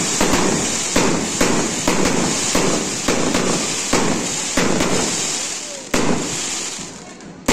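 Fireworks going off in quick succession: sharp firecracker bangs, about two a second, over a steady hissing crackle, thinning out near the end.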